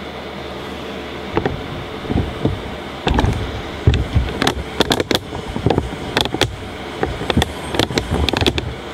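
Close handling noise: irregular rustling, clicks and knocks as nylon paracord strands are worked by hand around a wooden dowel. These start about a second and a half in over a steady background hum, and stop just before the end.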